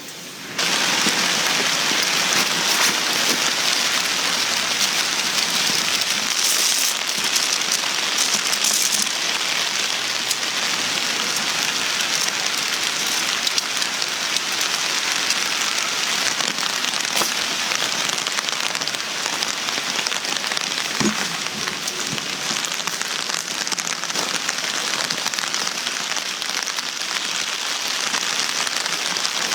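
Steady light rain falling, a dense even hiss of fine drops that starts abruptly about half a second in.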